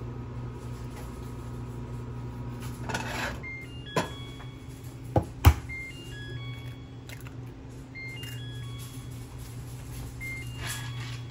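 Steady low hum of a running microwave oven, with a few sharp knocks about four to five and a half seconds in as an egg is cracked against a frying pan.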